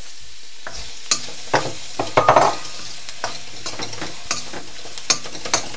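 Sliced onions frying in hot oil in a wok with chopped garlic and dried chillies: a steady sizzle sets in about a second in. A metal spoon stirring them gives irregular clicks and scrapes against the pan.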